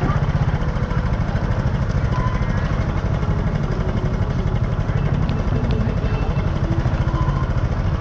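A small engine running steadily close by, a fast even low pulsing that does not let up, with faint voices over it.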